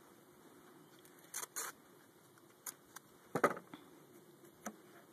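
A few short clicks and rattles of hands handling gear, the loudest about three and a half seconds in, as the queen cage is worked out of a package of honeybees.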